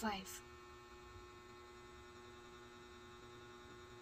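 Faint, steady electrical hum with a constant tone and no other events.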